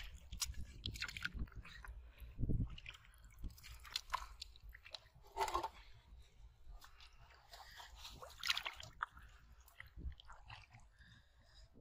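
Hands working in thick wet mud: irregular squelches, squishes and crunches, with a few louder wet bursts.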